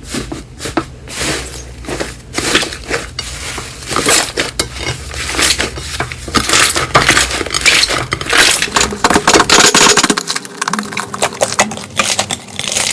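Slime being pressed and squeezed by hand, giving a dense run of crackles and pops that grows louder after about four seconds.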